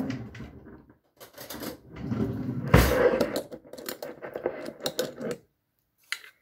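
Kitchen utensils handled on a counter: a metal spoon and glass clattering, a knock about three seconds in, then a run of light clinks and clicks. Near the end come a few short clicks as the clip-top lid of a glass sugar jar is flipped open.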